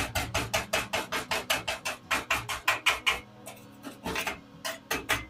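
Chipping hammer rapidly striking a steel stick weld, knocking off the slag: about six quick metallic knocks a second, a short pause, then a few more strikes near the end.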